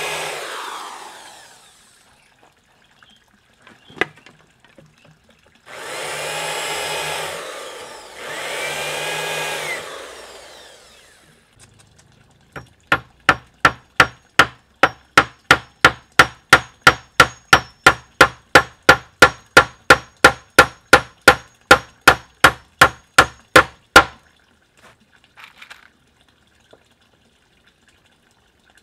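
A power drill runs in three short bursts, driving screws into pallet-wood deck boards. Then a claw hammer drives nails into the boards: steady, loud strikes about three a second for some eleven seconds, stopping about 24 seconds in.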